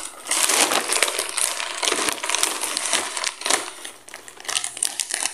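Large plastic poly mailer bag crinkling and rustling as it is handled and cut open with scissors, loudest through the first three seconds or so and lighter crackles after.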